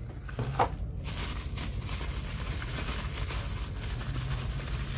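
Box packaging rustling and crackling as the contents are handled and taken out, with a few light clicks near the start.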